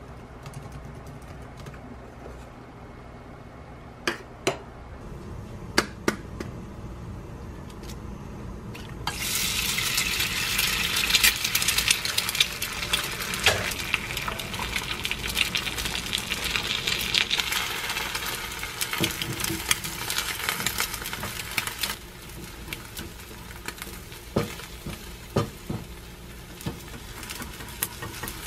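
An egg frying in oil in a small pan, sizzling loudly from about nine seconds in and easing off about two-thirds of the way through. A few sharp clicks and taps come before the sizzle and again near the end.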